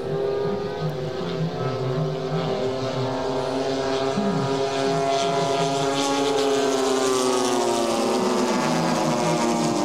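Propeller engines of radio-controlled model Douglas Skyraider warbirds flying in formation: several engine notes overlapping in a steady drone, shifting slightly in pitch and growing a little louder about four seconds in.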